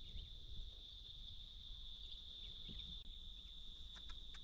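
Insects, crickets or the like, keeping up a steady, even high-pitched drone, faint over a low rumble, with a few soft clicks near the end.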